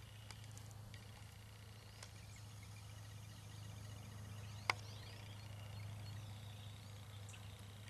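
Quiet outdoor ambience: faint bird calls over a steady low hum, with one sharp click a little past the middle.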